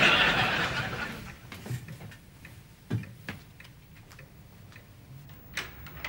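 Audience laughter fading away over the first second or so, followed by a few faint, irregular clicks.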